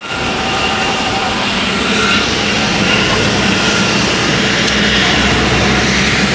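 Steady engine noise on an airport apron, with a faint high whine from airliner jet engines over the hum of the vehicle carrying the phone.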